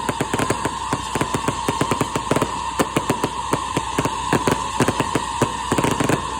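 Fireworks crackling: a fast, irregular run of sharp pops, over a steady high-pitched hum.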